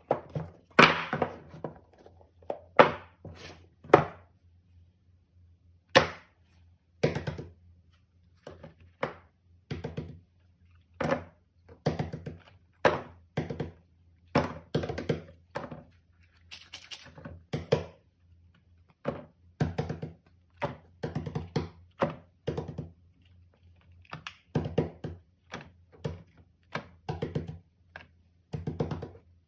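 Cardboard phone boxes and silicone pop-it fidget toys being set down on a table one after another: irregular thunks and taps. A few loud ones come in the first four seconds, and after a short pause they come about every half-second to a second.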